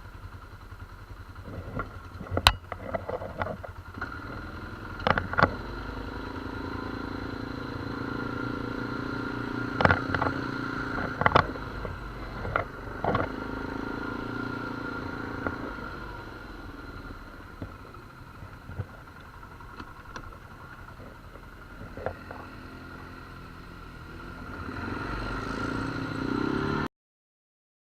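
ATV engine running steadily while riding a rough trail, with sharp knocks and rattles from the machine bouncing over the ground. The engine gets louder near the end, then the sound cuts off abruptly.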